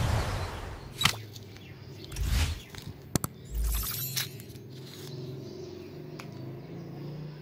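Sound effects of a like-and-subscribe animation: whooshes, with a sharp mouse click about a second in and another about three seconds in.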